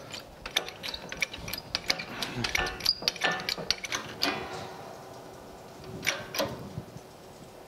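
Metal clicks, clinks and rattles of steel parts being handled at a hydraulic press as it is set up to push a cut shaft out of a cast iron pulley hub. A quick run of them comes in the first half and a couple more about six seconds in.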